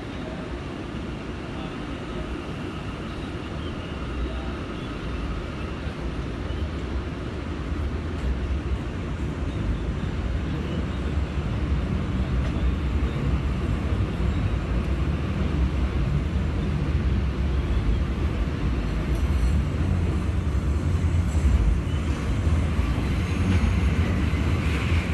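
Inside an R179 subway car of a moving New York City J train: wheels and track rumbling, growing steadily louder through the stretch as the train runs, with a faint high tone over it.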